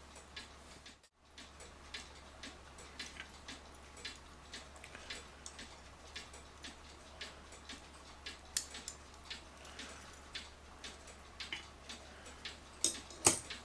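Faint, light clockwork clicks, a few a second, with a few sharper clicks near the end.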